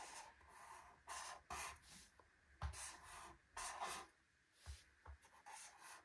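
Marker pen drawing on an activity-book page: a series of faint, short scratchy strokes, about seven, as square outlines are traced.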